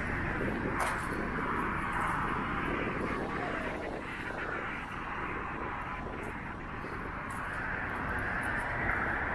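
Street traffic: a steady hiss of cars going by on the road, easing a little in the middle and building again near the end.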